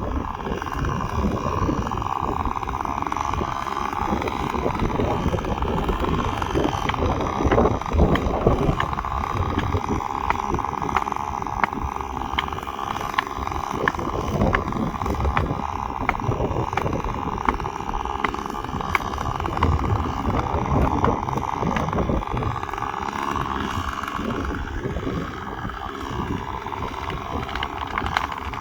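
Gas chainsaw running steadily under load, cutting through the trunk of a dead tree during a felling cut.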